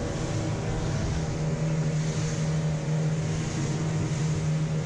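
Motorboat engine running at a steady pitch, under a constant hiss.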